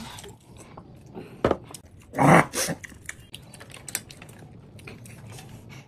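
Close-up eating sounds of a man working through roasted chicken in gravy with his hands: irregular wet clicks and smacks of chewing and of fingers pulling at the meat, with a louder mouth sound about two seconds in.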